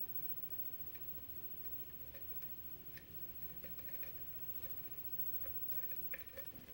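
Faint, irregular small metallic clicks and ticks of a lock pick working the pins and keyway of a Sargent pin-tumbler lock under tension during single-pin picking.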